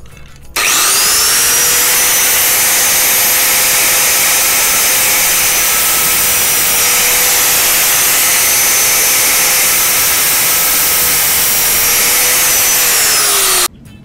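Angle grinder with a thin metal-cutting disc running at full speed, a loud steady high whine over a hiss. It starts suddenly about half a second in, drops a little in pitch near the end and cuts off.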